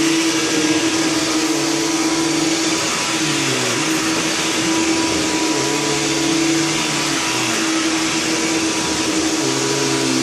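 Bosch Athlet 18 V cordless vacuum cleaner running on its turbo setting over carpet: a steady motor whine over rushing airflow hiss, its lower tones wavering a little.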